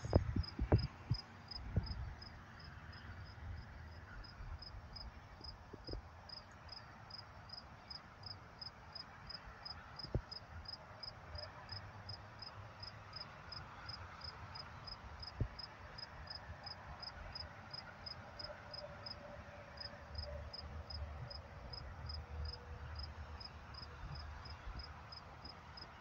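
A cricket chirping steadily, about three high chirps a second, with a few sharp knocks in the first couple of seconds.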